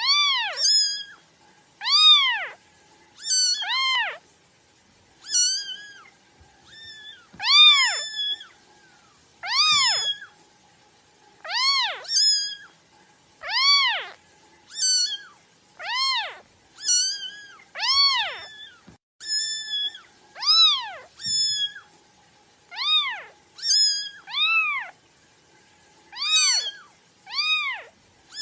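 A kitten mewing over and over, about one high-pitched cry a second. Each cry rises and then falls in pitch, with quieter, shorter mews between them.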